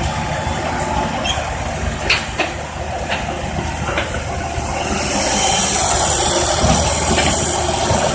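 Tracked excavator's diesel engine running steadily while it works. A few sharp knocks come about two seconds in, and the sound grows louder with a high hiss from about five seconds in.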